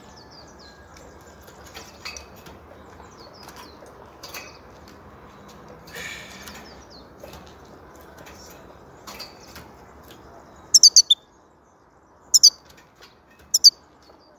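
Caged European goldfinch moving about its cage, with soft chirps and a flutter of wings. In the last few seconds it gives sharp, loud, high call notes in three quick groups.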